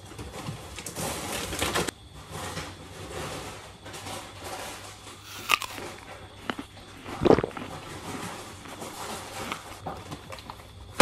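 Groceries being unpacked: plastic bags and food packets rustling and crinkling, with scattered knocks and one heavier thud about seven seconds in.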